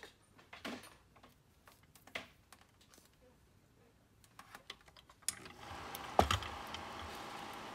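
Light clicks and rattles of multimeter test leads being handled on the projector, then about five seconds in the Kodak Carousel 850H slide projector switches on and its fan motor runs with a steady hum, with one sharp click just after it starts.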